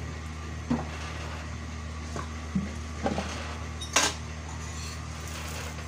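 Cooking utensils knocking lightly against a hot tawa while a roti is oiled and turned: a few soft knocks and a sharper clink about four seconds in, over a steady low hum.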